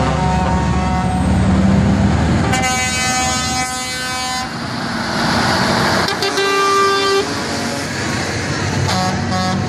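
Truck air horns blasting as trucks drive past: a long blast of about two seconds starting about two and a half seconds in, a shorter one at a different pitch about six seconds in, and another near the end. A diesel engine rumbles beneath the first two seconds.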